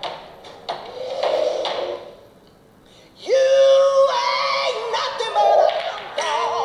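Background music with a sung or synthesized voice. It drops away briefly about two seconds in, then comes back with a sudden rising note into held, wavering tones.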